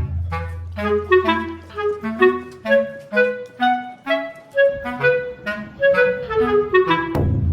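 Background music: a quick melody of short notes over a held low bass note that drops out a little past halfway and returns near the end.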